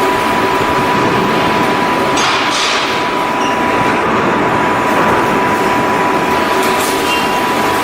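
Steady, loud shipyard machinery noise with a constant thin whine, broken twice by short hisses about two seconds in.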